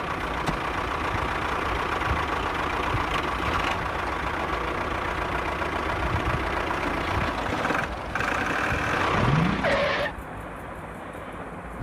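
A vehicle engine running steadily, with a rising whine about nine seconds in; the engine sound cuts off suddenly at about ten seconds.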